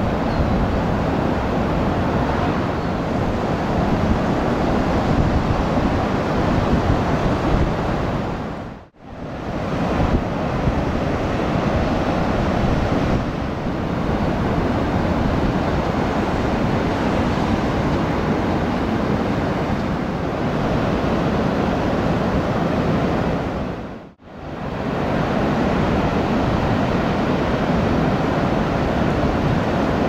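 Large ocean waves breaking in a steady, noisy wash, with wind rumbling on the microphone. The sound fades out and straight back in twice, about 9 and 24 seconds in.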